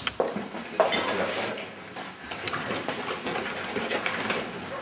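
Rustling and light knocks of papers and a cardboard ballot box being handled, with one sharp click just under a second in.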